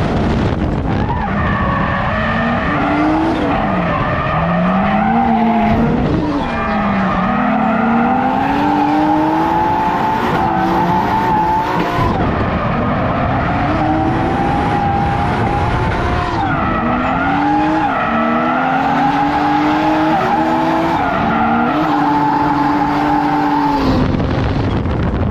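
Drift cars' engines revving hard, the pitch climbing and dropping again and again as they are held at high revs, over tyres screeching as the cars slide sideways in tandem. The sound breaks off abruptly a few times.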